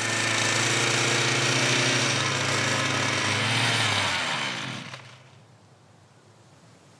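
Strimmer running loudly, then switched off about four seconds in, its pitch falling as it winds down to a stop.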